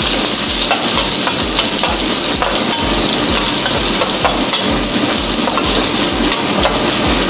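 Food sizzling in hot oil in a cooking pan, a steady hiss with a few light clicks scattered through it.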